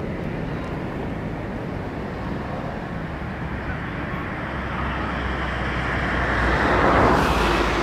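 Boeing 737-800's CFM56-7B jet engines running as the airliner touches down and rolls out on the runway. The steady noise grows louder over the last few seconds, with a deep rumble underneath.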